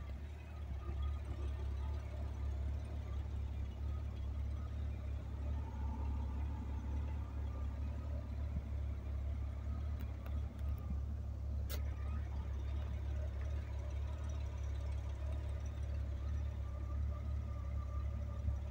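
Honda GL1500 Goldwing's flat-six engine idling steadily, a smooth low drone. A single sharp click about twelve seconds in.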